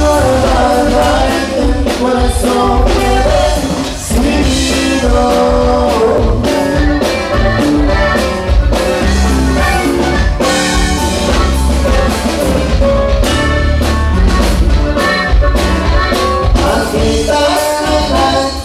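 A live norteño band plays: button accordion, bajo sexto and a drum kit, with a man singing into a microphone.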